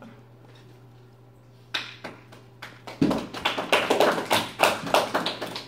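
A quick, irregular run of sharp taps. It starts about two seconds in and grows dense and loud about a second later, at several taps a second.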